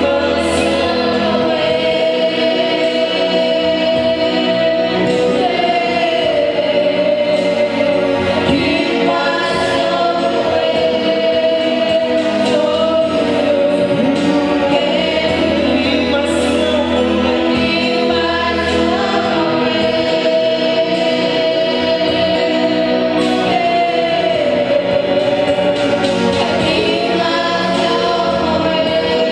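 Gospel choir singing a worship song, the voices holding long notes, over instrumental backing.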